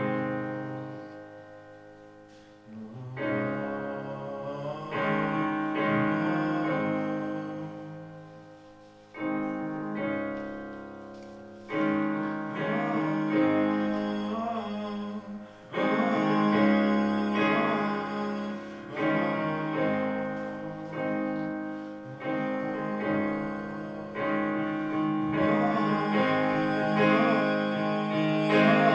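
Electronic keyboard played live: sustained chords struck every few seconds, each left to ring and fade away.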